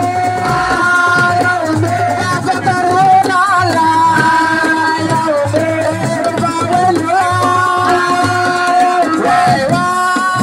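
Assiko band music: a singer holding and bending long notes over hand drums and percussion.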